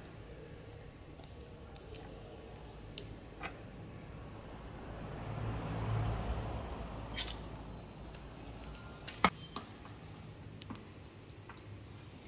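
Faint clicks and taps of small kitchenware being handled: tiny glass bowls and spoons on a wooden table. A low rumble swells and fades in the middle, and there is one sharper click about nine seconds in.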